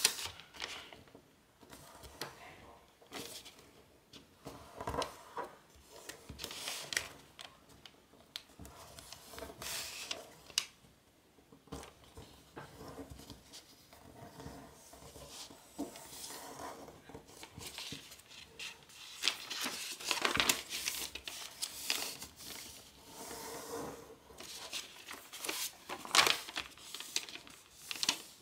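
A large sheet of origami paper being folded and creased by hand: irregular crinkling and rustling as the edge is folded over and fingers press and slide along the crease, with a sharp paper crackle at the very start.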